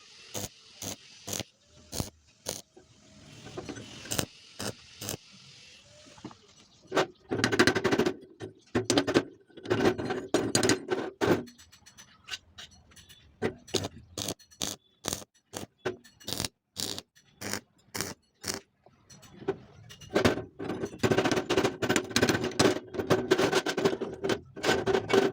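Metal being worked by hand: a run of sharp clicks, knocks and scraping, with a few seconds of hiss near the start and two longer spells of dense clattering.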